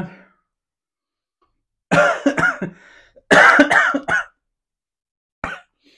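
A man coughing in two short fits, one about two seconds in and a longer one about a second later, then a single brief cough near the end. The coughing is set off by the chilli heat of the noodles burning his throat.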